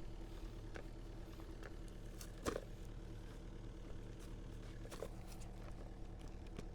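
Compact excavator's diesel engine idling steadily, with a few light knocks, the clearest about two and a half seconds in.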